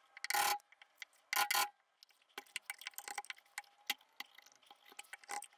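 Bench chisel paring out the inside corner of an oak frame by hand: two scraping strokes in the first two seconds, then a run of small light clicks and ticks.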